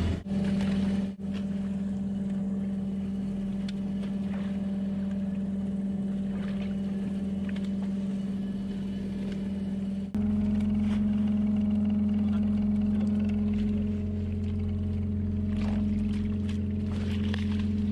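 A fishing boat's engine running at a steady drone. About ten seconds in it steps up a little in pitch and loudness, with faint knocks and water splashes on deck over it.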